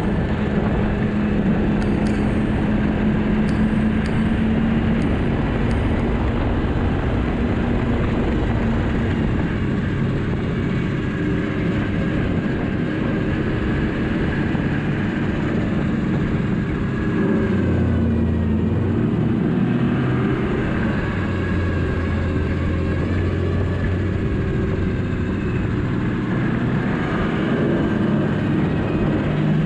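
Yamaha snowmobile's four-stroke three-cylinder engine running steadily while riding a trail. Its pitch drops a little past halfway as the throttle eases, then rises again near the end.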